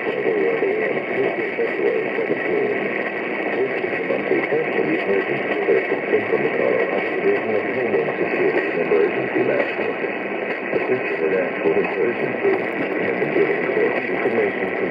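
Continuous, steady noisy audio from a radio receiver, static-like, with no distinct words standing out.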